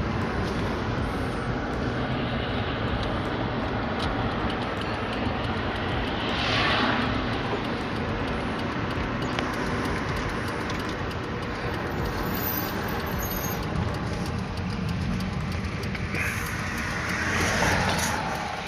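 Steady road and engine noise inside a moving car, rising in two swells, about six seconds in and again near the end.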